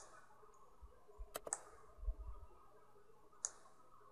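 Faint computer mouse button clicks: one near the start, a close pair about a second and a half in, and another about three and a half seconds in, with a soft low bump in between.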